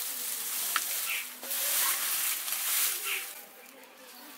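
Dry straw rustling and crackling as it is lit and catches fire in a clay chulha (mud stove), in two loud noisy spells that fade near the end, with a sharp click about three-quarters of a second in.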